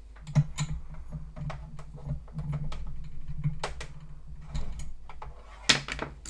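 A USB cable plug fumbled and scraped against the port of a plastic earbud charging case, a run of small clicks and taps, with one sharp loud click near the end as the plug is pushed home. A low steady hum runs beneath.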